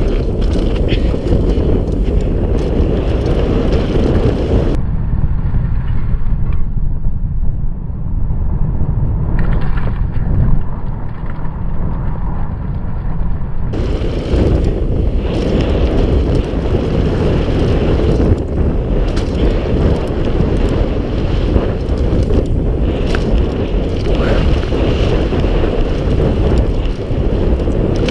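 Wind buffeting the microphone of a mountain bike's onboard camera during a fast descent on a dirt trail, with rattles and knocks from the bike running over rough gravel.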